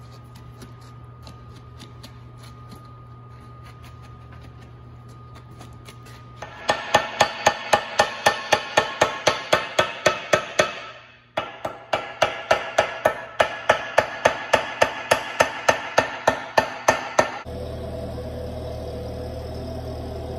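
Ball-peen hammer tapping rapidly on the steel rim of a stack of brake rotors filled with wet concrete, about five ringing metallic taps a second, in two runs with a short pause between. Before the tapping only faint ticking and scraping is heard, and near the end it gives way to a steady low hum.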